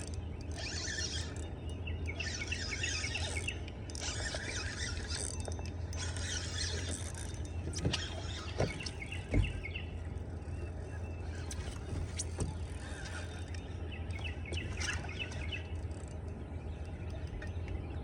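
Small birds chirping and singing in repeated bursts over a steady low hum, with a few short knocks about eight and nine seconds in.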